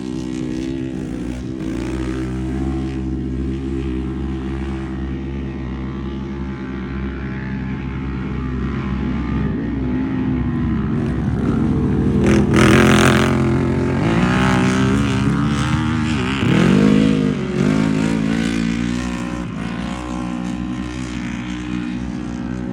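UTV engines running steadily, with the revs rising and falling several times. A brief loud rush of noise comes about halfway through, followed by another rise and fall of the revs a few seconds later.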